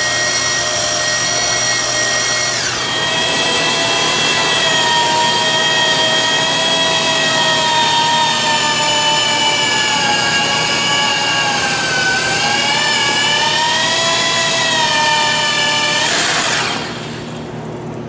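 Corded electric drill boring into a steel truck frame rail: a steady motor whine that drops in pitch about three seconds in and wavers as the bit loads up. It stops about a second and a half before the end.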